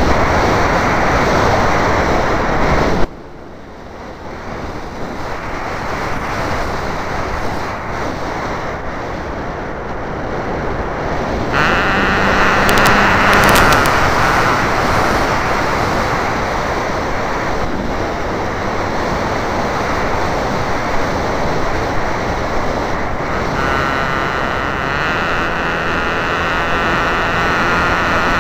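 Wind rushing over the microphone of a camera mounted on a Wild Hawk radio-controlled model airplane in flight, mixed with the plane's motor. The noise drops sharply about three seconds in, then builds back gradually. A steadier humming tone comes in about twelve seconds in and again about twenty-four seconds in.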